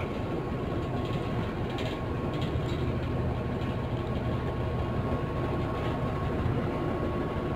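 Inside a moving bus: the engine drones steadily under road rumble, with a faint steady whine above it.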